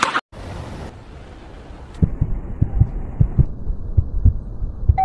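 Heartbeat sound effect: a steady run of low thumps starting about two seconds in, over a low hum, after a short burst of hiss near the start.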